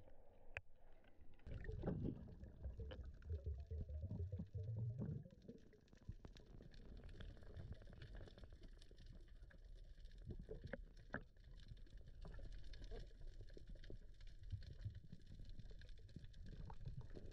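Water sloshing and gurgling around the camera housing at the surface, a low rumble for the first few seconds. Then, once the camera is under, faint muffled underwater sound with many scattered small clicks and crackles.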